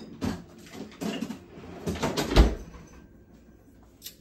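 Kitchen freezer being opened and rummaged in: a run of knocks and rustles, then the door shutting with a deep thump about two and a half seconds in, and a single sharp click near the end.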